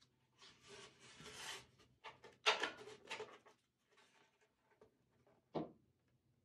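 A gripped wooden skateboard deck, a Darkroom Fractal, being handled and flipped over on a table. First a sliding, rubbing scrape, then a cluster of wooden knocks and scrapes as it turns over, and a single short knock near the end as it is set down.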